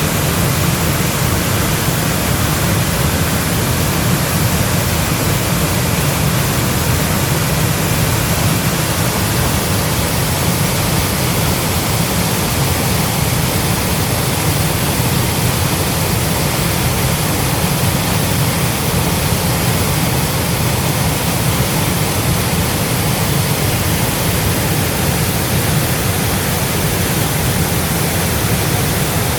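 A 20-metre mountain waterfall: water falling and rushing steadily, a dense, unbroken noise with a heavy low rumble underneath a bright hiss.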